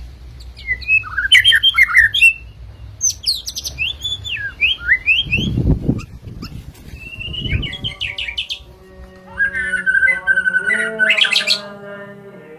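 White-rumped shama (murai batu) singing rapid, varied phrases of whistles and chirps over a low hum, with a couple of low thuds midway. About eight seconds in, music with held tones comes in under one last burst of song.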